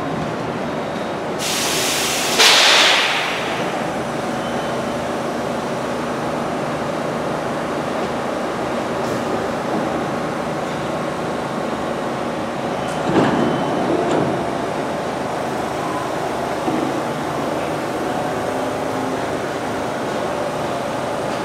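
New York City subway train standing at a terminal platform, with a steady machinery hum. A loud burst of air hiss comes about two seconds in, and a shorter noise burst about thirteen seconds in.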